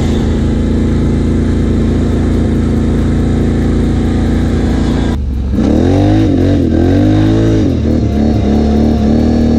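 Can-Am ATV engine running at a steady pitch under throttle, then about five seconds in dropping briefly before revving up and down several times and settling back to a steady run.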